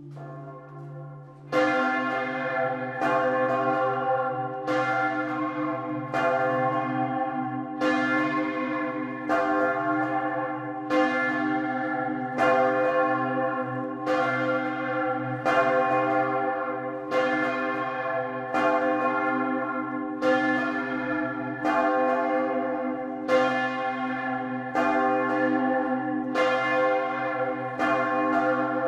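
Large bronze church bells swinging and ringing together, heard close up inside the bell tower. About a second and a half in, the ringing jumps sharply louder. After that, strong clapper strikes come about every second and a half with other strikes between them, each one ringing on into the next.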